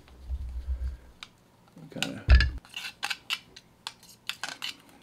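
Brass cleaning rod and the Mossberg 500's forearm assembly being handled on a bench as a dry patch is pushed through the forearm's tube. Light rubbing in the first second, a dull knock a little over two seconds in, then a run of short sharp metallic clicks.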